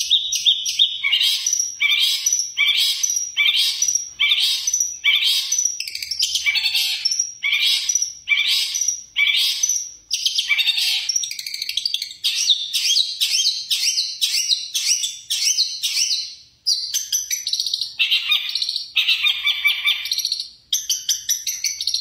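Long-tailed shrike (cendet) singing in a cage. For the first half it repeats one harsh chattering phrase about every 0.7 s, then it switches to a denser run of varied phrases, the many-song repertoire typical of this bird.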